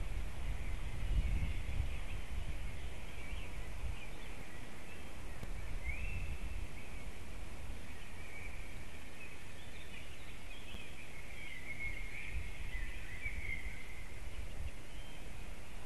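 Forest ambience: small birds singing and chirping faintly in the background, over a steady low rumble of wind on the microphone that is strongest in the first couple of seconds.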